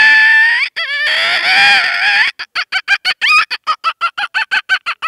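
A boy imitating a chicken with his voice: two long, drawn-out calls, then a fast run of clucks, about six a second.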